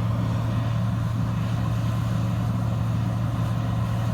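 An engine running steadily: a constant low drone with no change in speed.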